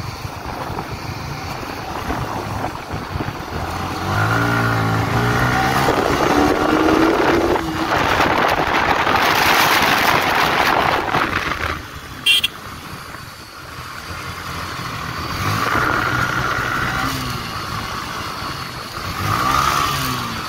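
Yamaha sport motorcycle's engine running under way, its pitch climbing as it pulls up through the revs and then easing off, several times. A loud rush of wind on the microphone runs for a few seconds in the middle, and a sharp click comes about twelve seconds in.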